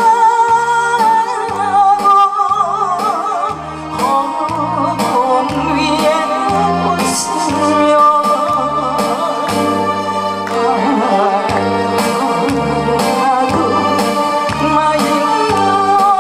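Woman singing into a microphone over an amplified backing track with a pulsing bass line, her held notes wavering with vibrato.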